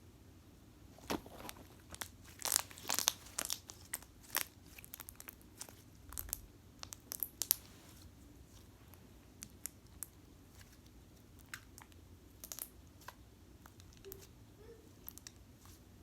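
Slime being squeezed and stretched by hand, giving irregular crackling clicks and pops. They are densest over the first half and sparser after.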